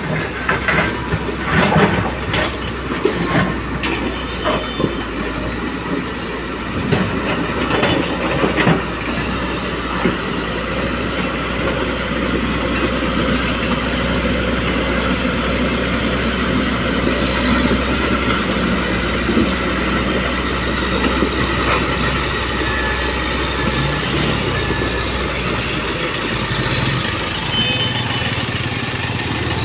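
Heavy diesel construction machinery running steadily with metallic clanking and scraping. The knocks and clatter are densest in the first several seconds, after which the engine runs on under a steadier grinding noise.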